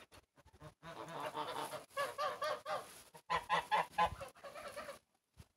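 Several white domestic geese honking in quick runs of short calls. The calls are loudest from about two to four seconds in.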